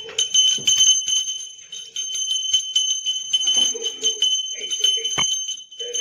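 Small hand-held puja bell (ghanti) rung rapidly and continuously, a high, bright ringing made of many quick strokes with brief breaks.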